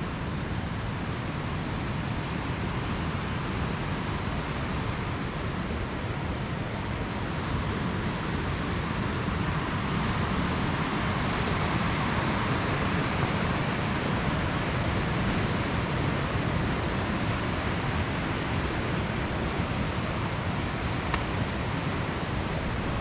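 A steady, even rushing noise with no distinct hoofbeats, growing a little louder about eight seconds in.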